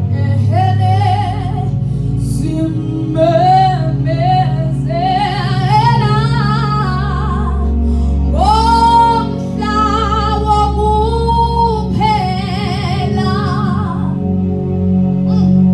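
A woman singing a slow worship song into a handheld microphone, in several held phrases with strong vibrato and short breaths between them. A low sustained accompaniment runs underneath.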